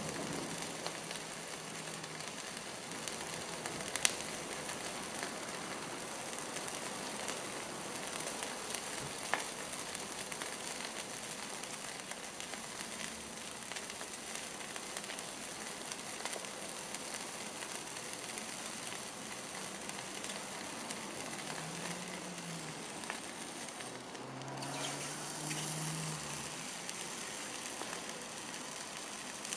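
Glowing red-hot metal ball sizzling in cat food: a steady hiss with two sharp pops, about four and nine seconds in.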